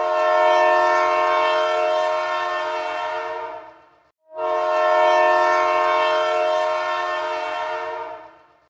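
Train horn sounding two long blasts, each about four seconds, with a short gap between them.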